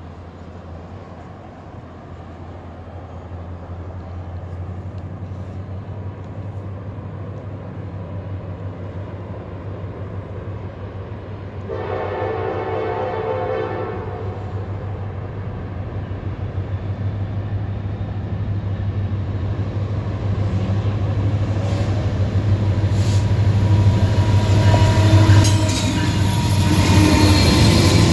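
GE Dash 9-40CW diesel-electric freight locomotives working up a grade, their engine rumble growing steadily louder as they approach. About halfway through, one horn blast of about two seconds. Near the end, a few sharp knocks and metallic wheel noise as the locomotives pass close by.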